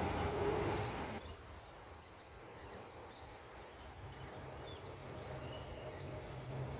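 A passing train's running sound, with a steady whine, dies away about a second in. After it comes a quiet outdoor background with a few faint bird chirps.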